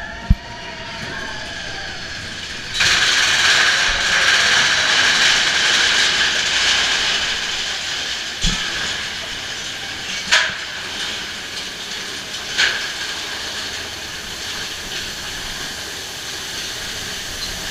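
Mine-train roller coaster cars of Big Thunder Mountain rattling and clattering along the track in a mechanical, ratchet-like din. The noise jumps up suddenly about three seconds in and eases off slowly, with three sharp clunks in the second half.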